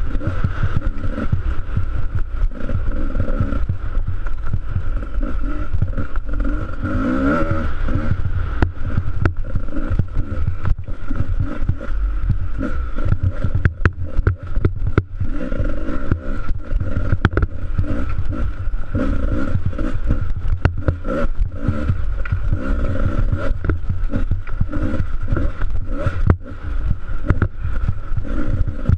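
Dirt bike engine running hard and revving up and down as the bike rides a rough snowy trail, with frequent knocks and rattles from the bumps.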